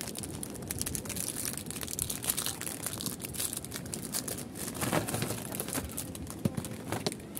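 Plastic candy wrapper crinkling and rustling as hands tear it open and handle it, with many small irregular crackles.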